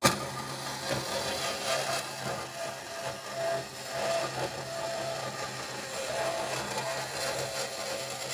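Vertical bandsaw running steadily, its blade cutting through a mandrel-bent thin-wall stainless steel exhaust header tube.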